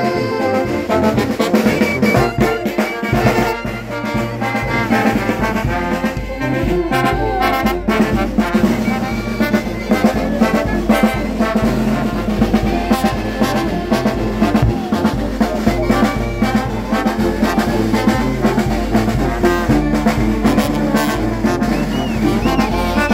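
Peruvian village brass band playing, trumpets and trombones carrying the tune over a steady beat in the bass.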